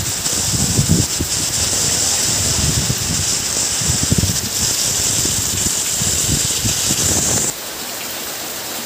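Heavy rain pouring down in a steady, loud hiss, with uneven low rumbling underneath. About seven and a half seconds in, the sound drops abruptly to a softer, even hiss of rain.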